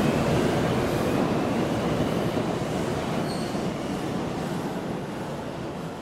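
JR West 223-series electric train pulling out of the station. Its running and wheel noise carries a faint rising motor whine and fades steadily as the train moves away.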